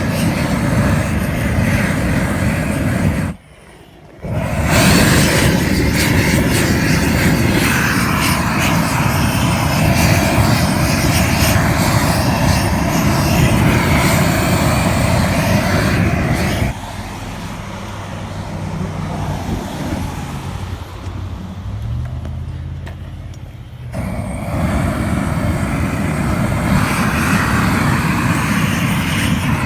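Weed torch burning with a steady, loud rushing flame. It cuts out briefly about three seconds in, runs quieter for several seconds in the middle, then comes back up to full flame.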